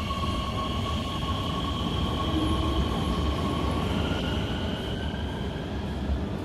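Chengdu Metro Line 6 train pulling out along the platform. Its traction motors whine over a steady wheel rumble, and from about two-thirds of the way in a whine rises in pitch as the train gathers speed.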